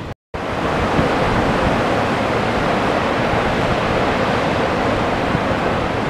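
Steady rushing noise of ocean surf on a beach, with wind across the microphone.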